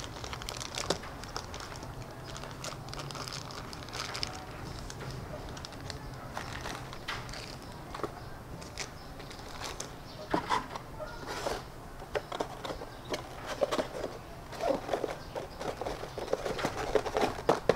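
Toy packaging being handled: plastic bags crinkling and hands knocking and scraping against the packaging tray, in scattered short clicks. The rustling grows busier a few times, near the end most of all, as a small box is fitted into the tray.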